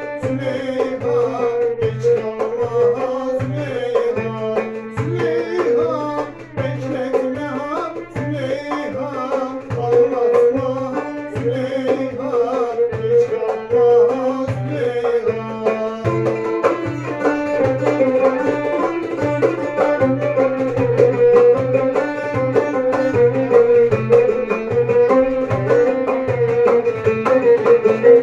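Violin, banjo and darbuka playing a Turkish folk tune together: the violin carries a winding melody over plucked banjo strumming and a steady darbuka beat of a few strokes a second.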